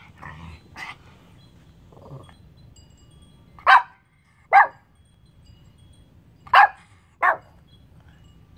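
Small Pomeranian growling softly a few times, then barking four sharp barks in two quick pairs, the pairs about two seconds apart.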